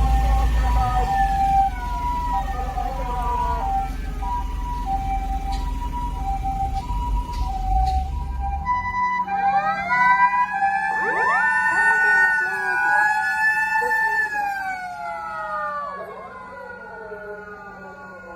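Japanese ambulance two-tone siren alternating between a higher and a lower tone, each about half a second long, over a low engine rumble. About halfway through, several wailing sirens start up together, rise, hold and then fall away, fading near the end.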